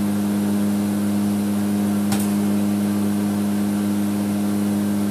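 Steady drone of the WC-130J's four turboprop engines and propellers heard inside the cabin, a strong low hum, with one sharp click about two seconds in.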